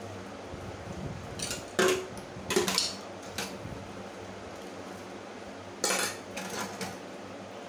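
Stainless steel utensils clattering and clinking against each other and the steel sink as dishes are washed by hand. There are sharp clanks around two to three seconds in and again around six seconds in.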